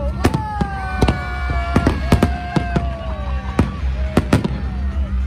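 Aerial fireworks shells bursting in quick succession: about a dozen sharp bangs at uneven intervals over a steady low rumble, with long tones sliding slowly down in pitch behind them.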